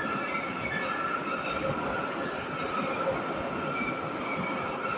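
Moscow Metro subway train pulling into an underground station, a steady rumble of wheels on rails with a thin wheel squeal over it.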